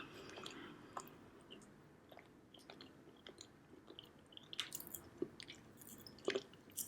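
Faint close-up chewing of a soft coconut marshmallow pie: quiet, scattered wet mouth clicks and ticks, a few louder ones in the second half.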